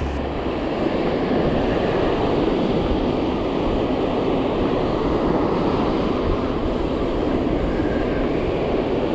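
Steady rush of breaking surf mixed with wind noise, even and unbroken throughout.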